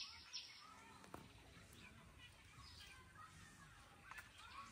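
Near silence with faint bird chirps and calls scattered throughout.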